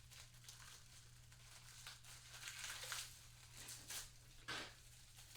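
Faint crinkling and rustling from a tire valve stem kit's paper directions and contents being handled, with a couple of light clicks near the end, over a low steady hum.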